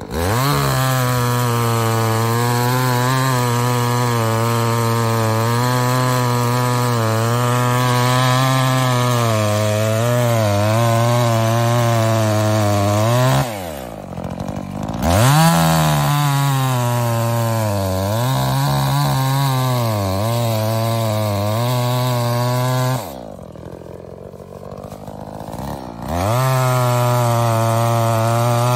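Efco MT 5200 51.7cc two-stroke chainsaw run at high revs while cutting into logs, its pitch wavering under load. Twice, about halfway through and again a few seconds before the end, it drops to idle and then revs back up.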